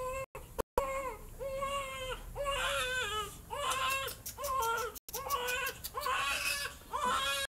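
Newborn baby crying during its bath: a rapid run of short, high cries, about one and a half a second, each ending with a falling pitch.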